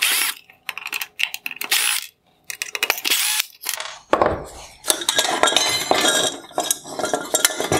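Screwdriver clicking on the small Phillips screws of an H11 halogen headlight projector, then its metal bracket, reflector and plastic parts clinking and clattering as they are pulled apart, densest from about four seconds in.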